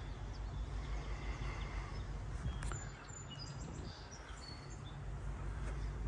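Outdoor ambience: a steady low rumble, with a few short, high bird chirps about halfway through.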